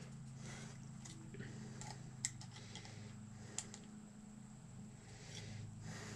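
Faint handling sounds of a horn being marked with a pen: light scratching and rustling, with two sharp clicks about two and three and a half seconds in, over a steady low hum.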